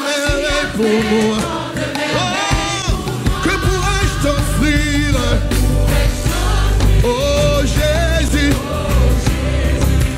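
Live gospel worship song sung in French: a male lead vocalist with backing singers over a band. The bass grows heavier about two and a half seconds in.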